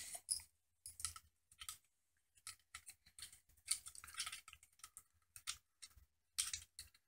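Scattered light clicks and scrapes of small 3D-printed plastic toy parts being handled, loudest about four seconds in and near the end.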